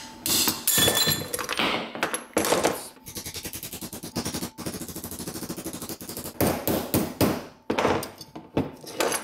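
Claw hammer striking a thick aluminum sheet to bend it around a round metal form: a few hard blows, then a fast run of lighter taps lasting about three seconds, then more hard blows near the end.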